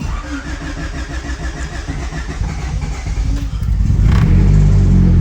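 Turbocharged Honda Civic engine starting cold: it catches suddenly and runs, getting louder and settling into a steadier idle about four seconds in.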